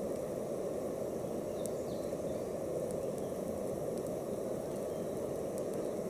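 Steady low outdoor background noise, an even rumble with no rhythm or pitch, with a few faint short ticks over it.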